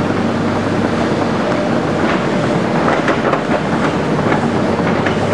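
Hydraulic excavators' diesel engines running steadily while digging, with a series of sharp knocks and clatter of rock and spoil from about two seconds in.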